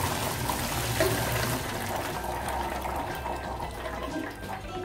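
Hot cooking water pouring steadily from a tilted pressure cooker into a plastic colander, splashing as boiled peanuts in the shell are drained.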